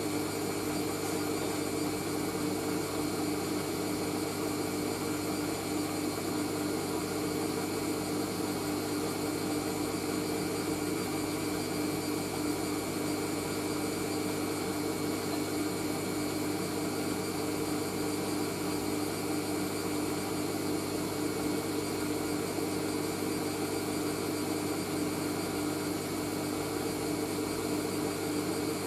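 Hoover AAA160 Whisper 1600 washing machine spinning at a steady speed, a constant motor and drum whine with an even hum. This is the spin just before the final rinse.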